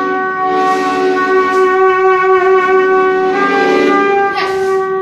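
Trumpet and accordion playing long held notes together, several pitches sounding at once; the notes shift past three seconds in and break off at the end.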